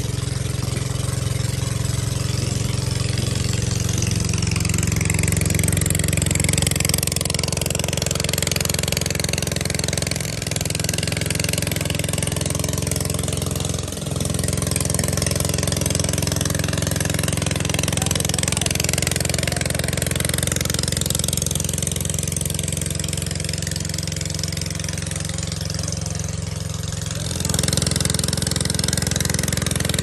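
An engine running steadily at a low, even pitch, with its tone changing abruptly a few times, near 10 and 14 seconds in and again near the end.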